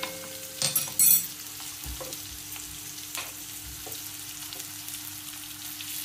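Onion, curry leaves and spice powders frying in hot oil in a metal kadhai: a steady sizzle, with two sharp knocks against the pan about a second in.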